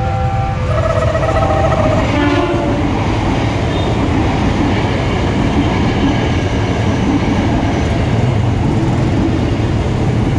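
KRL Tokyo Metro 6000 series electric commuter train sounding its horn in a few held blasts, then running past close by with a steady rumble and wheel clatter on the rails.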